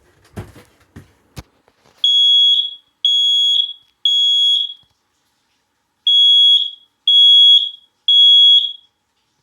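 A few knocks, then a smoke alarm sounding its test: three loud, high beeps about a second apart, a short pause, and three more beeps, the temporal-three evacuation pattern.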